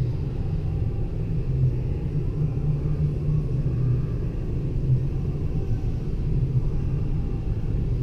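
Steady low rumble of background noise, even in level with no distinct knocks or events.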